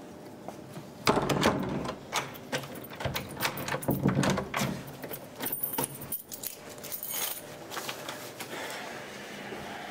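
A bunch of keys jangling and clicking against a door lock as it is unlocked, a rapid run of small metallic clicks and jingles that dies down near the end.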